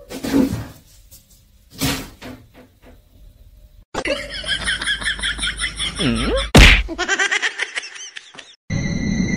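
A cat jumping at a standing mirror makes two sharp thumps, followed by a few lighter knocks. Then come busy, fast comic sound effects, with a falling cartoon glide and one loud smack about two-thirds of the way through, and a steady high beep near the end.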